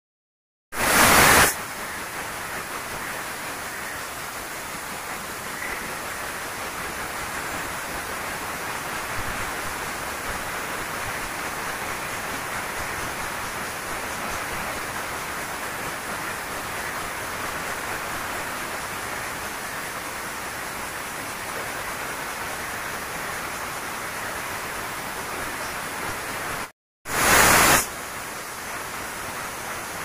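Pressure cooker on a gas stove letting off steam through its weight valve: a short loud blast about a second in, then a steady hiss. Near the end it stops briefly, then there is another short loud blast and the hiss resumes.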